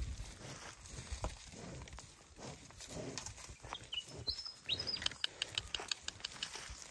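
Hereford cows' hooves on dry grass and ground as they walk, a loose run of soft footfalls and crunches that grows busier near the end, with a short bird whistle about four seconds in.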